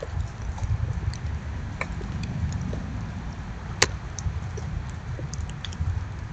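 Raccoons foraging in birdseed close to the microphone: an uneven low rumble with scattered small clicks and crunches, and one sharp click about four seconds in.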